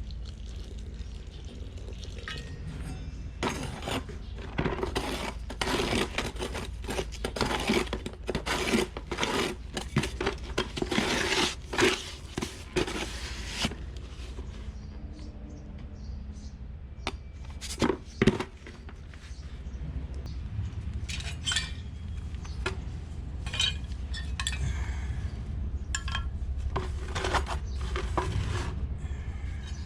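A metal plastering trowel scraping and clinking against mortar and concrete in irregular runs of strokes, dense for several seconds, then pausing and resuming more sparsely, over a steady low hum.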